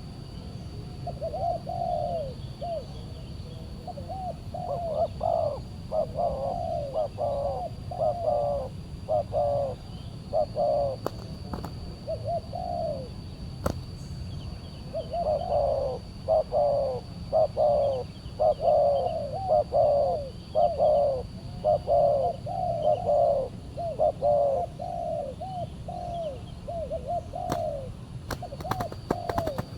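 Spotted doves (tekukur) cooing in long runs of short, rapidly repeated coos: one stretch in the first ten seconds, a pause, then a longer, louder stretch. This is the calling of a decoy dove and a territorial wild dove.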